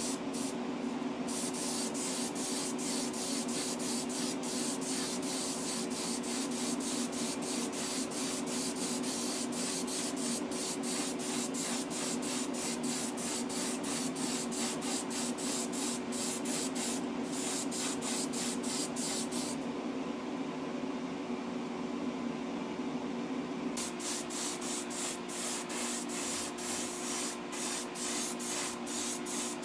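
Dual-action airbrush spraying thinned paint in short, rapid hissing puffs as the trigger is worked, laying on light coats. It pauses for a few seconds about two-thirds of the way in, over a steady low machine hum.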